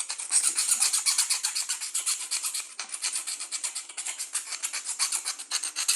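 Metal file rasping quickly back and forth on a soldering iron tip, several strokes a second, scraping the black soot off the tip.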